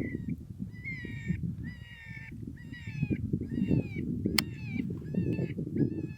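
Predator call playing a distress sound: short, high squealing cries, each falling in pitch, repeated about once a second, over a low rumble.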